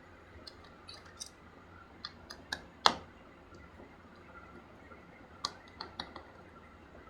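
Screwdriver work on a laptop's plastic back cover: scattered sharp clicks and taps as the bottom-case screws are undone, in two clusters, with one louder tap near the three-second mark.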